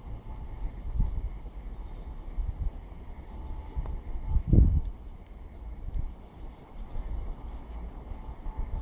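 Small birds chirping and singing in short repeated phrases, over low rumbling gusts of wind on the microphone; the strongest gust comes about halfway through.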